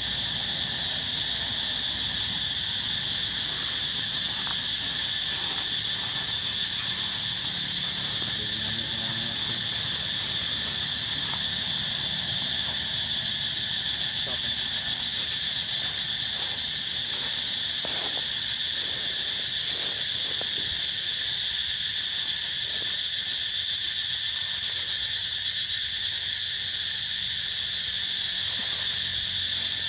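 Steady chorus of insects, a shrill, unbroken high drone that holds an even level throughout.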